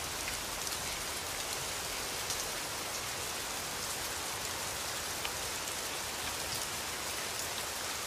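Steady rain falling, an even patter with a few single drops standing out.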